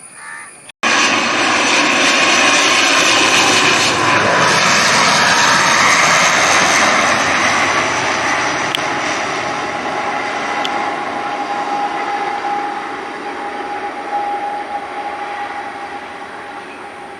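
Jet airliner's engines at takeoff thrust, a loud rumble with a whine that cuts in abruptly about a second in. It fades gradually over the second half as the aircraft climbs away, leaving a steady whine.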